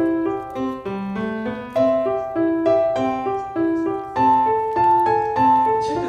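Background piano music: a melody of single notes over a steady accompaniment, a few notes a second.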